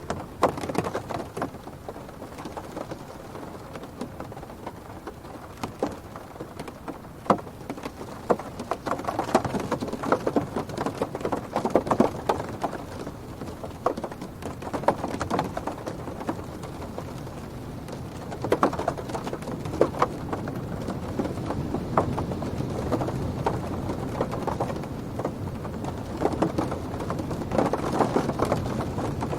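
Rain pattering and drumming on a car's roof and windows, heard from inside the cabin, with irregular sharp drop impacts over a low rumble. Gusts of wind make it swell and ease several times.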